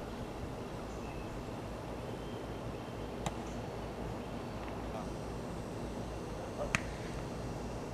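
Steady outdoor background noise with a low rumble, broken by two sharp clicks about three and a half seconds apart.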